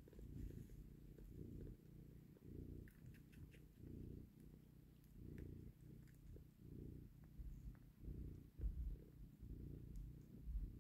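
Mother cat purring quietly while her kittens nurse, a low rumble that swells and fades with each breath about every second and a half. A few faint soft clicks sound over it.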